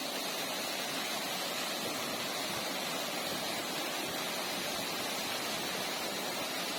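Waterfall rushing: a steady, even roar of falling water that holds unchanged throughout.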